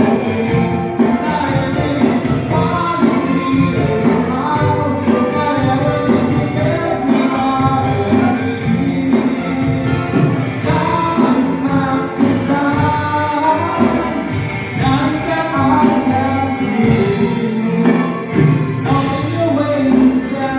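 Live band playing a song with a man singing into a microphone over electric guitar and keyboard backing, amplified through PA speakers.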